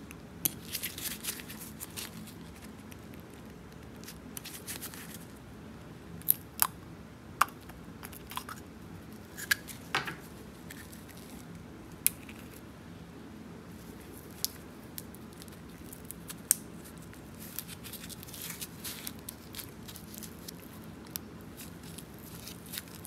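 Scattered light clicks, taps and rustles of small parts being handled while a VW fuel pump is taken apart, with about a dozen sharp clicks standing out. A faint steady hum runs underneath.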